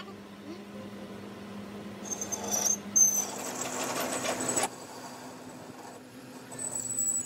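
Metal lathe running with a steady hum. From about two seconds in there are a few seconds of harsh metal-on-metal scraping with a high squeal, which stop abruptly, and a high whine comes back near the end.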